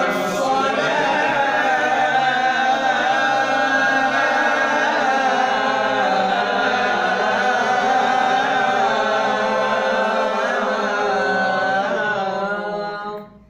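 A man chanting one long, ornamented phrase of the ezan (Islamic call to prayer) in makam Hicaz, the voice wavering up and down without a break and stopping a little before the end.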